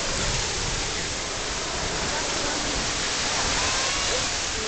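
Grand Geyser erupting: a steady rush of water jetting up and splashing back down amid billowing steam.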